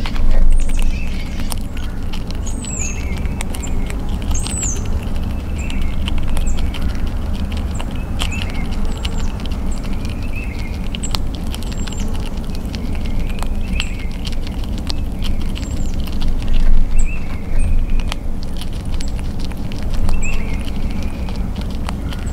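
Gray squirrel eating peanuts close to the microphone: a run of quick, sharp crunching and crackling clicks as it chews through nuts and shells. Small birds chirp in the background over a steady low rumble.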